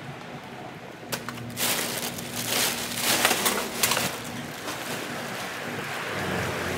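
Crinkling, crackling handling noise in bursts for about three or four seconds, starting about a second in, over a steady low hum.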